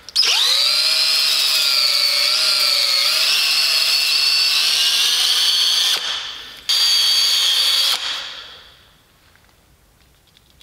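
DeWalt 18-volt cordless drill spinning a small 400-grit sanding disc against an alloy wheel's lip, sanding down curb rash. It runs with a steady whine for about six seconds, stops briefly, runs again for about a second, then spins down.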